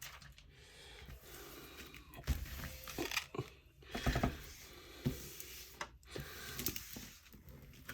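Thick plastic packaging crinkling and rustling as it is handled, with a couple of soft thumps about two and four seconds in.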